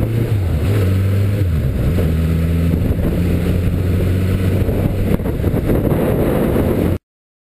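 Motorcycle engine running steadily at low revs while riding, heard from on the bike; its note drops about a third of a second in and then holds. The sound cuts off abruptly about seven seconds in.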